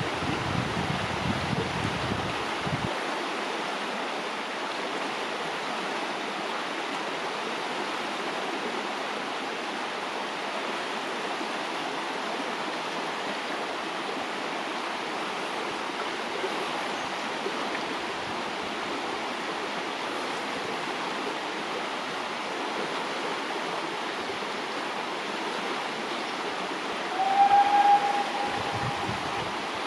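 Fast-flowing river rushing over stones, a steady hiss of running water. Wind rumbles on the microphone for the first few seconds and again near the end, and a short pitched sound, the loudest moment, rings out about 27 seconds in.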